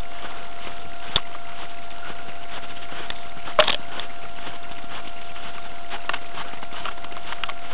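Footsteps crunching in snow over a steady hiss with a faint constant tone. Two sharp clicks come about a second in and about three and a half seconds in.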